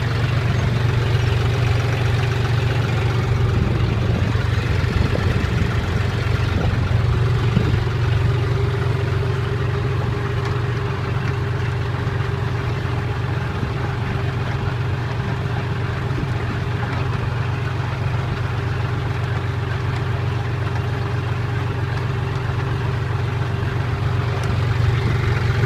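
Tractor engine running steadily at a constant speed, a low drone with a faint steady whine above it.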